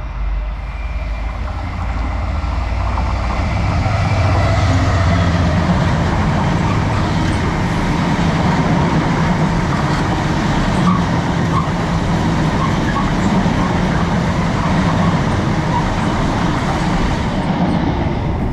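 Class 70 diesel-electric locomotive passing through the station at speed with its train. Engine and wheel-on-rail noise builds over the first few seconds and then holds at a loud, steady level.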